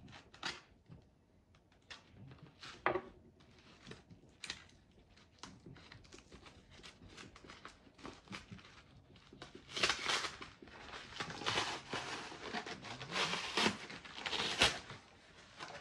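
Corrugated cardboard mail packaging being handled and torn open by hand: scattered rustles and clicks at first, then from about ten seconds in a run of loud ripping tears of cardboard.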